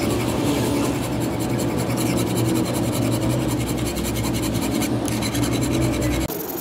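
Hand file rasping back and forth across a steel knife blade cut from a car's suspension spring and clamped in a vise, with a steady low hum beneath. The sound changes abruptly near the end.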